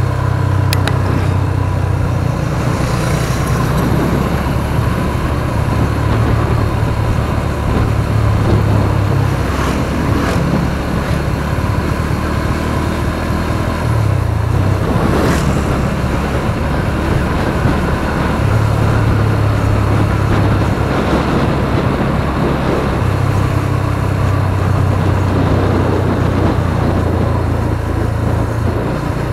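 Motorcycle engine running while riding along, a steady low hum whose note shifts now and then with the throttle, over a continuous rush of road noise.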